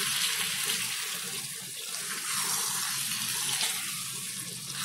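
Okra, onion and tomato masala sizzling in a pan while it is stirred with a spoon, a steady hiss.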